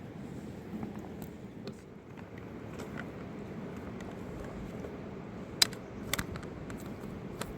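Steady low rushing of a fast-flowing river. In the second half there are three sharp clicks or knocks, the first the loudest.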